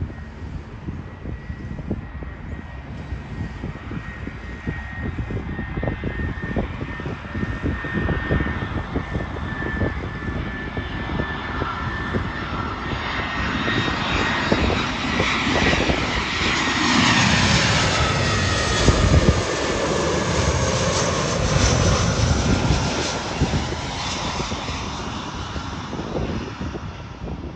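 Twin-engine jet airliner on landing approach passing low overhead: the jet engines' whine and rumble build steadily, peak about two-thirds of the way through with the whine falling in pitch as the plane goes by, then fade. Wind buffets the microphone throughout.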